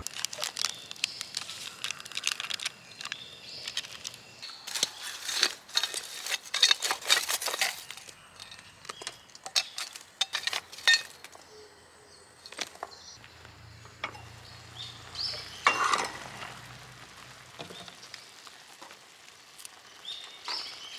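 Clinks and scrapes of dishes and utensils handled in quick runs, densest in the first several seconds, with another cluster around the middle and a few more later.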